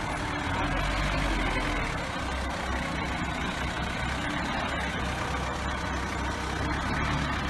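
Forklift engine running steadily, a low drone with no changes in speed.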